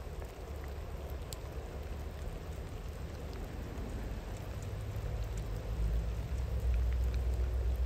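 Steady rain falling, with a few scattered drop ticks, over a deep low rumble from a distant train that grows louder near the end.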